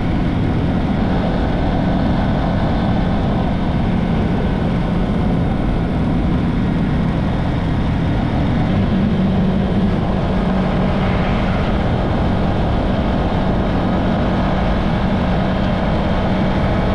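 Motorcycle riding at steady cruising speed: a constant engine hum under heavy rushing wind noise on the microphone.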